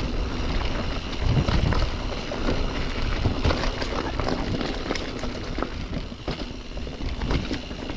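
Mountain bike riding fast downhill on a dirt singletrack trail: wind rushing over the microphone, with the bike's tyres and frame clattering in many short rattles over the rough ground.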